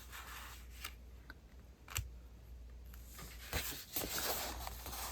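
Sheets of paper being handled and shuffled: soft rustling with a few light taps and clicks, busiest about three and a half seconds in.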